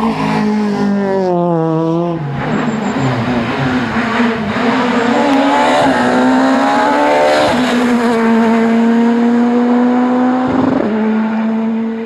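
Rally car engines pulling hard through the gears. The pitch climbs steadily and then drops sharply at each upshift, twice in the second half.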